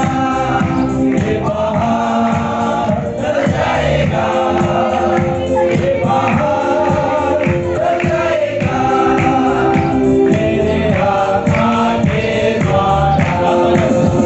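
Music: a choir singing with instrumental backing and a steady beat.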